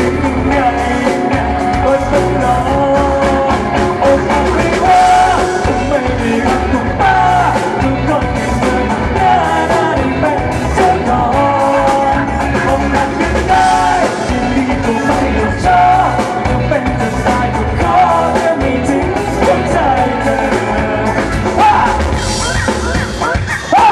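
Live pop-rock band playing loudly through the PA, with drums keeping a steady beat and a male lead singer singing the melody into a microphone.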